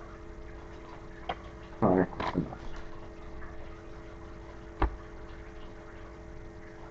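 Baseball trading cards being handled and sorted by hand: light clicks and taps, a short louder noise about two seconds in and a sharp knock with a thump near five seconds, over a steady low hum.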